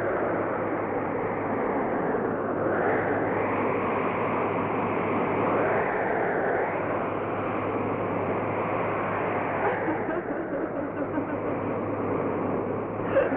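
Blizzard wind blowing steadily, swelling and easing in slow gusts, over a low steady hum.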